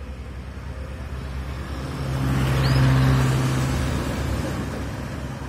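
A motor vehicle passing close by, its engine hum and road noise swelling to a peak about three seconds in and then fading. A single short chirp comes just before the peak.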